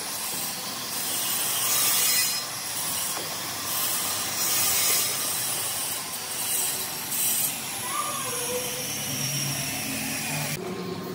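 Wood being worked by hand in repeated rasping strokes, such as sawing or planing, with a hiss on each stroke every second or two.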